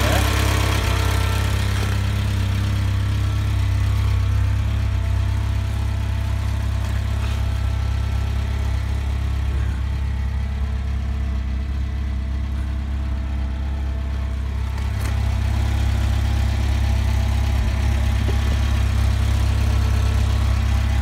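Talbot Express camper van's engine idling steadily, heard from underneath the van.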